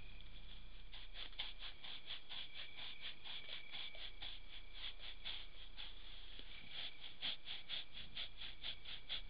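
Crickets chirping at night: a steady high trill, joined about a second in by rapid pulsed chirps, roughly four or five a second.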